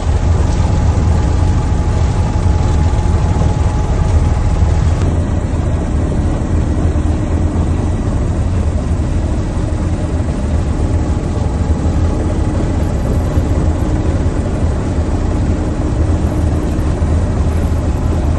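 Mi-24P helicopter's engines and rotor running steadily: a continuous heavy low drone with a steady whine above it.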